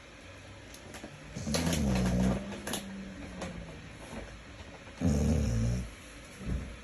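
Snoring: two deep, low snores about three and a half seconds apart, the first trailing off into a quieter drone.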